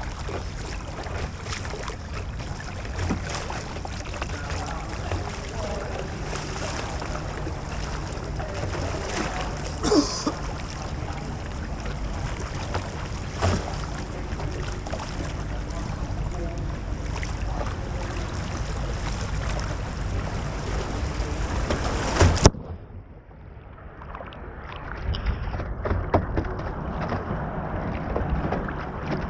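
Whitewater rushing and splashing on an artificial canoe slalom course. It cuts off suddenly about two-thirds of the way through, and a quieter water sound then builds up again.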